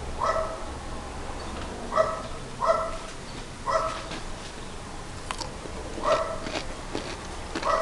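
Black-and-white cats meowing from below: about six short, loud calls at irregular intervals, begging for food.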